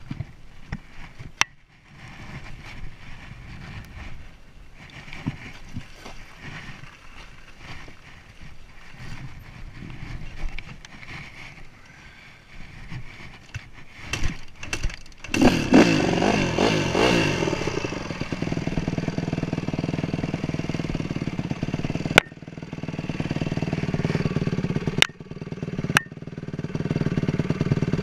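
Dirt bike engine catching a little past halfway, revving briefly, then settling into a steady idle, with a few sharp clicks near the end. Before it starts there is only handling and wind noise.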